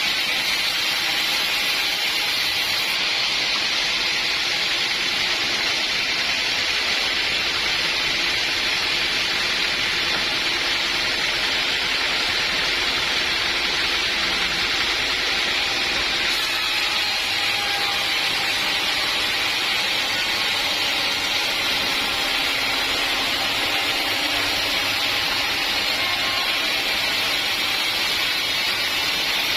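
Sawmill running: a steady, continuous hiss at an even level, without a break.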